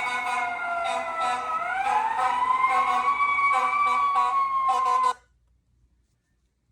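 Emergency vehicle siren wailing, its pitch rising and slowly falling in long sweeps; it cuts off suddenly about five seconds in.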